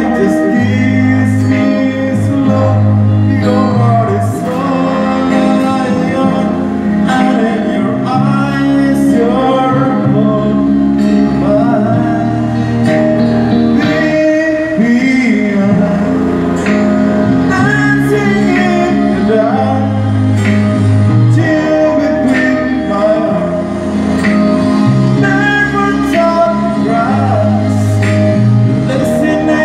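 A man singing a slow song while strumming an acoustic guitar, his voice carrying the melody over steady chords.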